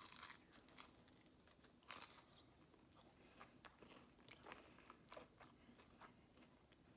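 Faint crunching and chewing as a bite is taken from a piece of breaded, fried General Tso's chicken. There are scattered short crackles, the loudest about two seconds in.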